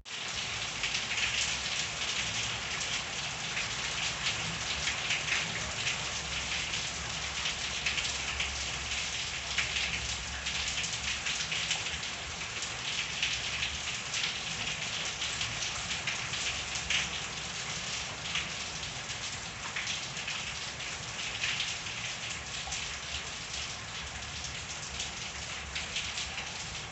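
Steady rain falling in a backyard, a dense patter of drops hitting surfaces.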